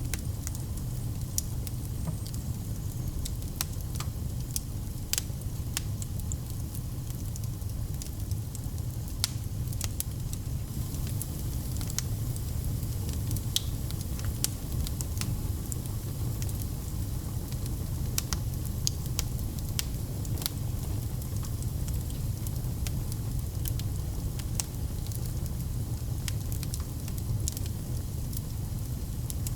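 Wood fire burning in a fireplace: a steady low rumble of flames with scattered sharp crackles and pops throughout.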